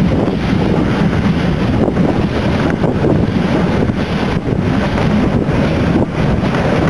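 Wind buffeting a microphone held out of the window of a moving train, over the steady rumble of the train running along the track.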